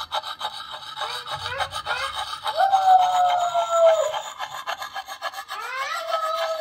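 Lansky puck sharpening stone scraping in quick circular strokes against the steel edge of a Marbles hunter's axe: a rapid, continuous rasping while the edge is being sharpened. Twice over it, a high tone is held for a second or two, rising at its start and falling away at its end.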